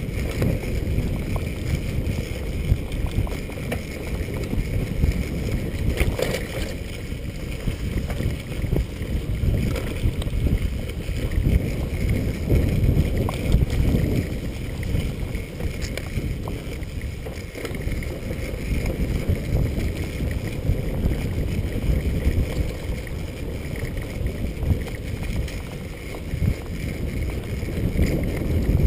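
Wind buffeting the microphone of a chest-mounted action camera during a fast bicycle ride, over a steady, uneven low rumble from tyres and frame on a bumpy dirt trail. A few sharp clicks or rattles come from jolts, one clear one about six seconds in.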